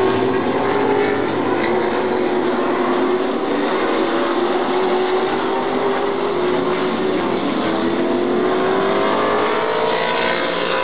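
Race car engines running on a short oval track, a steady engine note that climbs in pitch over the last few seconds as the cars speed up.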